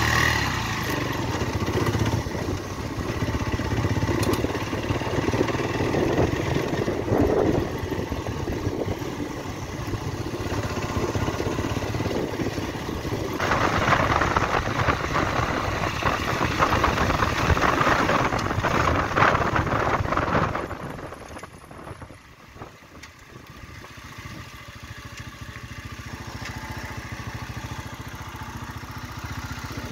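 Motorcycle engine running while being ridden along a gravel road, with road and rushing-air noise. It gets louder for several seconds in the middle, then drops off sharply about two-thirds of the way through as the bike eases off and slows, staying quieter to the end.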